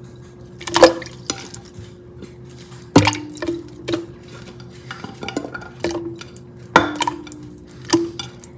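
Metal kitchen utensils clinking against a cooking pot: several sharp knocks spread over a few seconds, each with a brief metallic ring, over a steady low hum.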